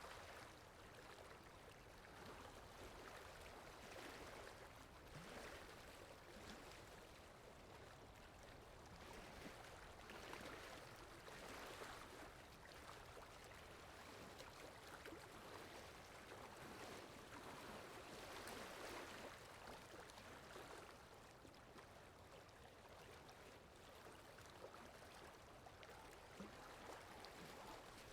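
Faint water lapping, rising and falling in soft swells every few seconds, over a low wind backdrop.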